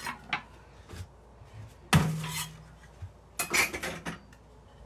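Pots, pans and cutlery clattering while the washing up is being done: a few light clinks, one loud clank about two seconds in that rings on briefly, then another burst of clatter about a second and a half later.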